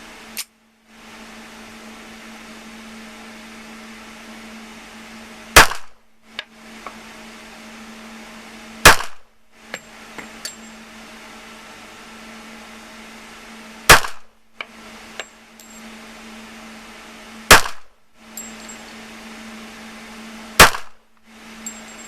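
Handgun fired five times at an uneven, deliberate pace, one loud sharp shot every three to five seconds, with a fainter sharp crack right at the start.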